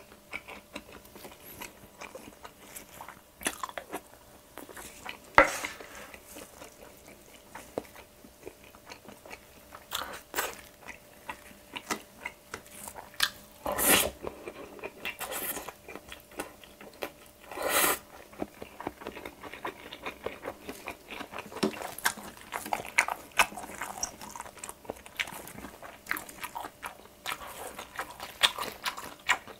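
Close-miked chewing and mouth sounds of someone eating bibimbap and Korean pancakes (jeon): a steady run of wet smacks and small clicks, with a few louder bites and spoon sounds spread through.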